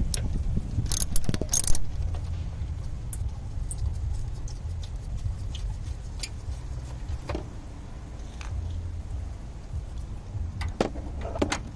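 Scattered metallic clinks and jingles of hand tools and small fasteners being handled in a car's engine bay during a coolant hose job. There is a cluster of sharp clinks about a second in, a few more in the middle, and another cluster near the end, over a steady low rumble.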